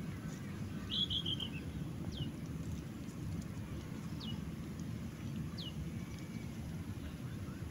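Small birds calling: a quick chattering run of high notes about a second in, then three single high notes that fall in pitch, spaced about a second and a half to two seconds apart, over a steady low background rumble.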